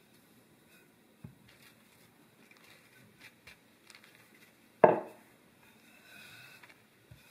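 Wooden rolling pin rolling and rubbing over floured dough on a countertop, with faint scuffs, a low thump about a second in and one sharp wooden knock a little before the end, the loudest sound.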